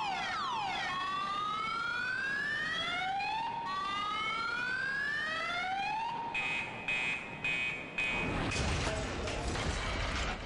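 Car alarm cycling through its siren patterns: quick falling whoops, then two slow rising wails, then rapid pulsed beeping. About eight seconds in a loud crashing noise takes over.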